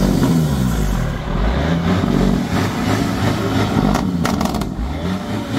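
Turbocharged diesel engine of a Peterbilt semi truck revving through its twin straight stacks, the pitch rising and falling. A brief rattle of sharp clicks comes about four seconds in.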